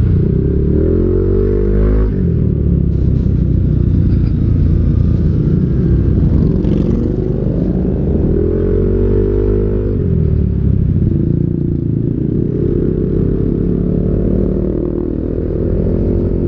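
Yamaha NMAX 155 scooter's single-cylinder engine running under way, its pitch rising and falling several times as it speeds up and eases off.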